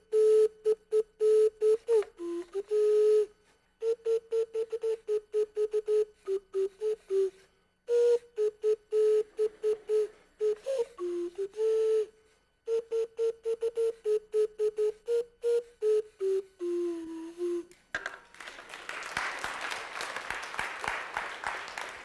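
A homemade wooden slide pipe, closed at one end by a piston, blown to play a tune in short separate whistle-like notes, its pitch stepping and sliding as the piston moves in and out. About eighteen seconds in the tune stops and an audience applauds.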